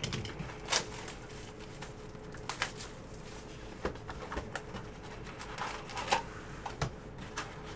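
Cardboard hobby box of Panini Contenders Draft football cards being opened and its foil-wrapped packs handled: scattered crinkles and light clicks of cardboard and foil wrappers. A faint steady hum sits underneath.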